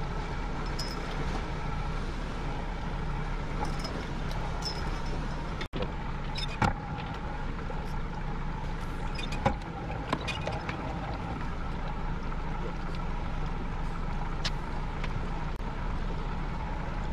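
Outboard motor of an inflatable boat running steadily, with a few sharp clicks and knocks about seven and ten seconds in.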